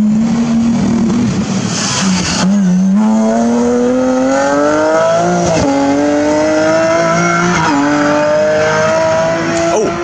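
BMW E36 3 Series rally car accelerating hard past on a tarmac stage. Its engine note climbs, then drops back with each of about three upshifts.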